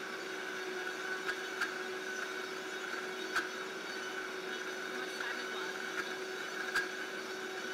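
Vitamix Ascent-series blender motor running steadily at high speed (speed 10), blending a thick hazelnut-chocolate nut butter, with a few faint clicks.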